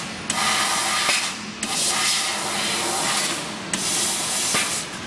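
500W fiber laser cutting machine cutting 1 mm stainless steel sheet at 13 m/min: the cutting head's assist-gas jet and the cut hiss loudly in three bursts with short breaks between contours, stopping just before the end. A steady low machine hum runs underneath.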